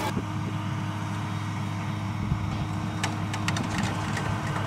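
Diesel engine of a long-reach excavator running steadily with a low hum. From about three seconds in, sharp cracks begin as the concrete silos it is pulling on creak under the strain.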